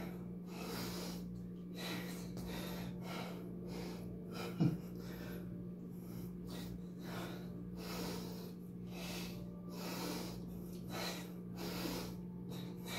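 A man breathing hard in quick, rhythmic breaths from the effort of a set of dumbbell triceps kickbacks taken near failure. A steady low hum runs underneath, and one brief louder sound comes about a third of the way in.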